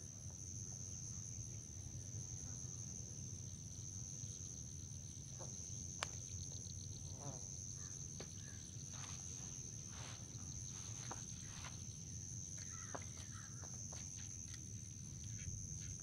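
Insects trilling in a steady high-pitched chorus, with scattered light rustles and clicks of hands working with fishing tackle in the grass, one sharper click about six seconds in.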